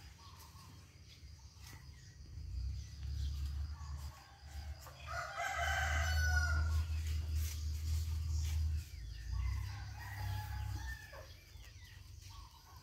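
A large fowl's call, given once about five seconds in and lasting about a second and a half, over a low rumble, with fainter bird calls later.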